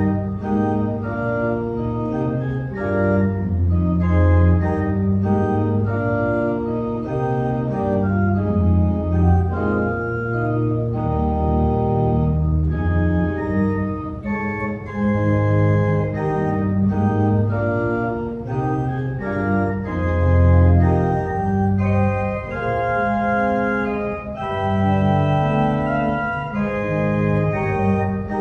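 Church organ playing slow, held chords over deep bass notes, the harmony changing every second or two.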